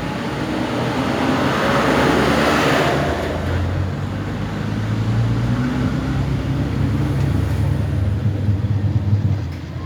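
Polytron washing machine spinning its tub, the motor giving a steady low hum, with a rushing noise that swells about a second in and fades by about three seconds. The spin, which had failed, is now working after repair.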